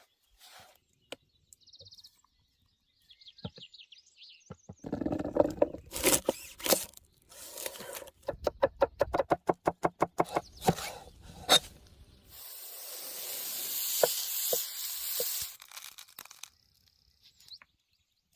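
Camp cooking sounds: a run of quick, evenly spaced knocks for several seconds, then a hiss lasting about four seconds, with faint bird calls at the start.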